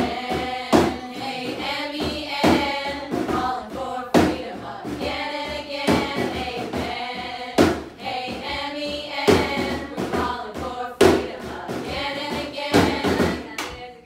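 Several voices singing together in a live musical number, over a strong beat that lands about every second and a half to two seconds.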